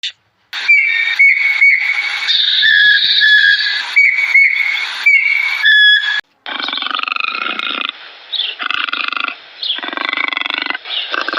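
Animal calls in two separate clips: first a series of high, thin whistling cries, then, after a short break, rough pulsing growl-like calls in repeated bouts.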